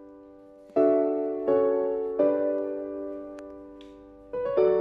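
Background music: slow piano chords, four struck in turn, each left to ring and fade away.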